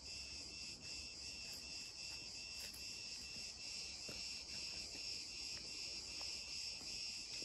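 Chorus of cicadas: a steady high-pitched buzz with a faint regular pulsing underneath.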